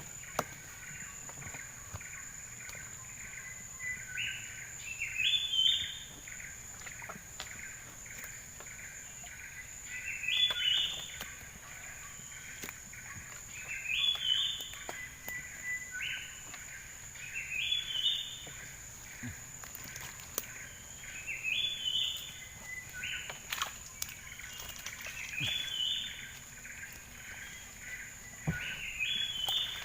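A bird singing the same phrase over and over, about every four seconds: a quick run of notes that steps up in pitch near its end. A steady high whine runs beneath it.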